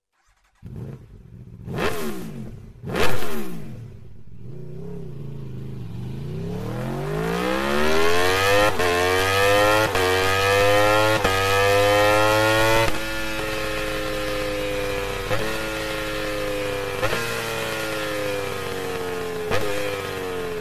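Aprilia RSV4 V4 engine through an Akrapovič Evolution Line full exhaust with carbon silencer: two sharp throttle blips, then the revs climb for several seconds with small breaks and slowly fall, with three short cracks on the way down.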